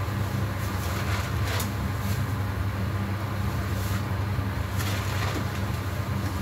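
A steady low machine hum, unchanging throughout, with a few faint soft crackles now and then.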